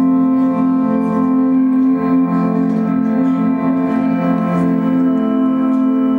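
Loop-based ambient music from an electric guitar run through effects and loopers: a steady, layered drone of held tones, with faint picked notes over it.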